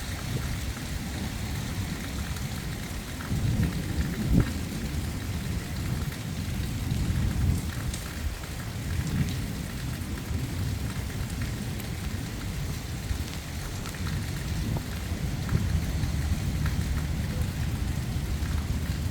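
Thunderstorm: steady rain with low, rolling thunder that swells and fades several times.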